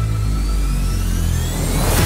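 Background music: over a held bass, a rising synth sweep builds and breaks into a loud, full passage at the end.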